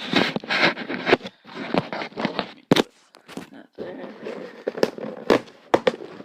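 Packaging being cut and pulled open with scissors: crinkly rustling of plastic and cardboard, broken by sharp snaps and clicks, with a short lull about three seconds in.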